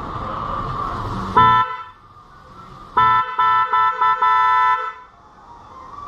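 A pair of aftermarket snail-type electric car horns, wired straight to a car battery for a test, sounding two notes together: one short blast about a second and a half in, then from about three seconds a run of blasts: a longer one, four quick toots and a longer final one.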